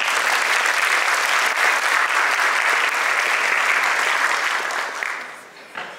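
Audience applauding steadily, then dying away about five seconds in.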